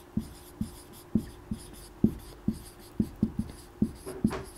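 Marker pen writing on a whiteboard: a string of short, uneven strokes and taps, about two or three a second.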